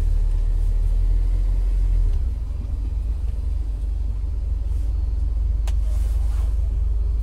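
Low, steady rumble of a car heard from inside the cabin, easing slightly about two seconds in, with a single sharp click a bit past the middle.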